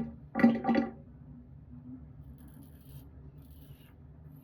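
Faint scraping strokes of a safety razor cutting through four or five days' stubble on a lathered face.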